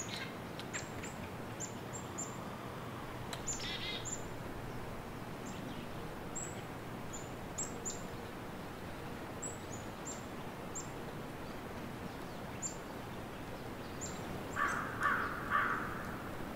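Small woodland birds calling with repeated short, high chirps throughout, and a brief trill about four seconds in. Near the end come three louder, lower calls.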